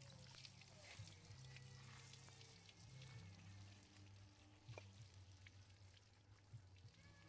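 Faint water from a hose pouring and splashing over a baby monkey and onto a perforated metal bench as it is washed.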